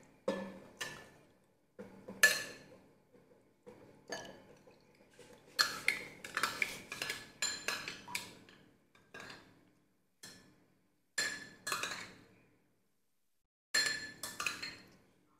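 Metal spoon clinking and scraping against a small porcelain bowl as liquid pig's blood is scooped out and spooned into other bowls. The clinks come in irregular clusters with a short ringing tone, busiest in the middle and again near the end.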